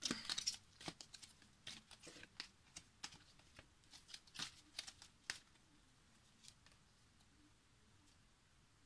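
Faint clicks and rustles of cards being handled, scattered over the first five seconds or so, then near silence.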